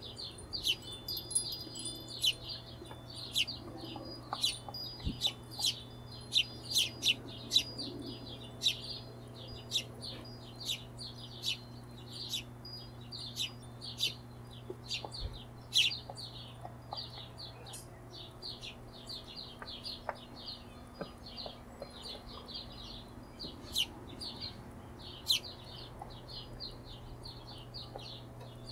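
Hummingbirds giving rapid, high-pitched chip calls, several short chirps a second in irregular runs, over a steady low hum.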